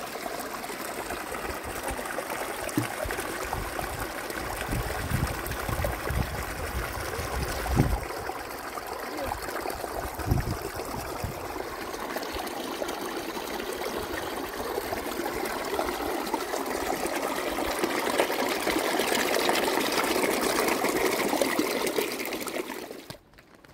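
Running water trickling and splashing, with a few soft low knocks in the first half; it grows stronger toward the end and cuts off suddenly.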